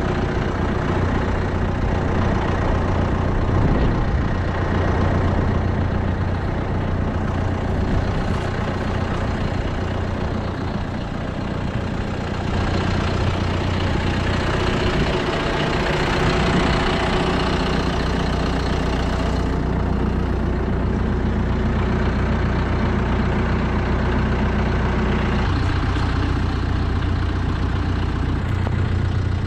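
A John Deere tractor's engine idling steadily close by, a constant low hum.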